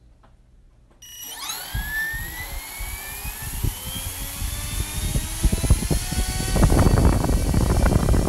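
Parrot Bebop 2's small brushless 1806 motor with its propeller spinning up on a thrust test stand as the throttle is turned up. A whine starts about a second in and rises steadily in pitch before levelling off, and the propeller's rush of air grows louder in the second half.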